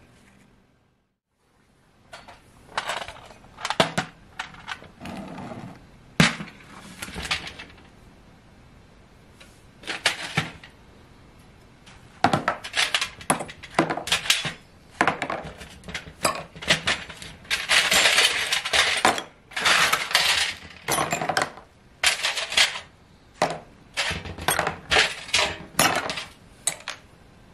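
Small metal antique binocular parts clinking and scraping against a metal baking tray as they are picked up by hand, many sharp clinks in quick succession, starting about two seconds in.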